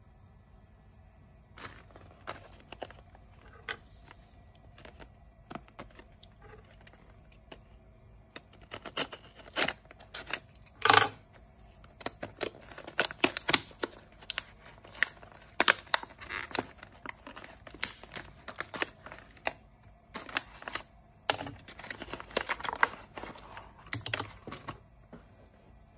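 Plastic blister packaging of a screen-cleaning kit being handled and torn open: irregular crinkling and crackling, thickest in the second half, with one sharp loud burst near the middle.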